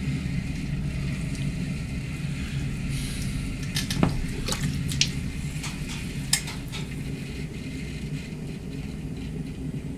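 Potter's wheel running with a steady low hum while wet clay squelches and slaps under the potter's hands, with a few short clicks. The clay is being coned up and down on the spinning wheel to make it even before throwing.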